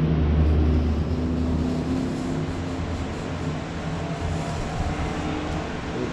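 A low engine rumble, strongest for the first two seconds and then fading, over a steady low hum.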